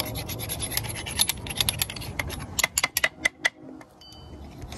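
A metal pick scraping and clicking against the steel sleeve of a burnt-out rubber suspension bushing, picking off charred rubber: quick scratchy clicks that thin out and stop about three and a half seconds in.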